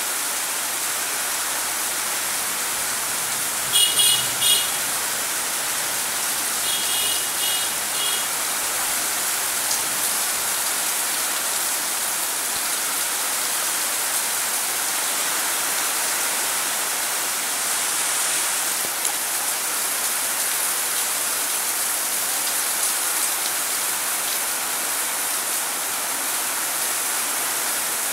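Steady rain falling on paving, an even hiss with no let-up. Short high-pitched chirps cut through twice, about four seconds in and again around seven to eight seconds.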